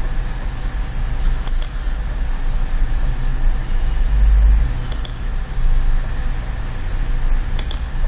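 Computer mouse button clicking three times, each click a quick pair of ticks (press and release), about a second and a half in, at five seconds and near the end, as points of a road are placed. Under it runs a steady low electrical hum with hiss.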